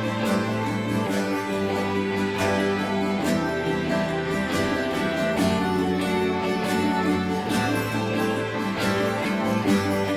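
Background music led by a plucked guitar, with held notes and a steady level.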